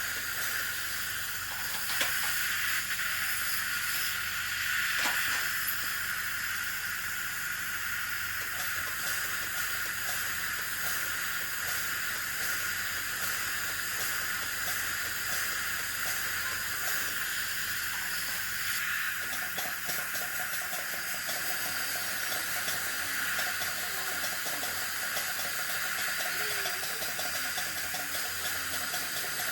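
Dental suction hissing steadily, with a couple of faint clicks in the first few seconds.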